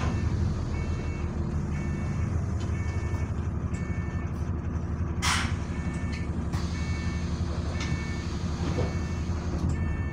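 Bus diesel engine running with a steady low drone, while a warning beep sounds about once a second. About halfway through there is a short, sharp hiss of released air.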